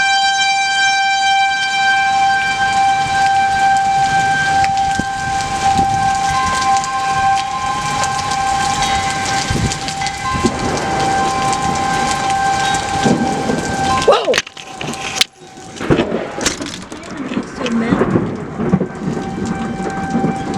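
Heavy rain falling through a thunderstorm, with a steady high tone sounding over it. About 14 seconds in, a close lightning strike gives a sharp crack of thunder, and rumbling follows.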